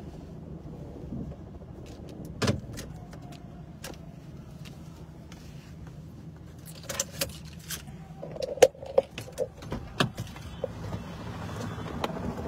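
Car engine idling, heard from inside the cabin as a steady low hum, with scattered sharp clicks and knocks, one about two seconds in and a cluster later on.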